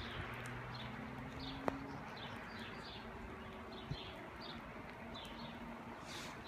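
A small bird calling over and over, short falling chirps about twice a second, over a steady outdoor hiss with a faint low hum; a single sharp click a little under two seconds in.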